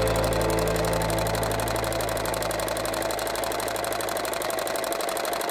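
Vintage sewing machine running steadily, freshly cleaned and oiled, its hook and shafts turning with a rapid, even mechanical clatter.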